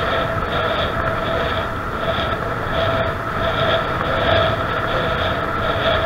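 Wind rushing over an action camera's microphone, mixed with tyre rumble from a bicycle riding on an asphalt path: a steady, loud rushing noise.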